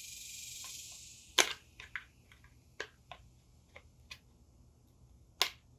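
A brief hiss, then a sharp click about a second and a half in and scattered small clicks and taps: hand work prying at the retaining tab of a Honda CT70H speedometer in its headlight housing.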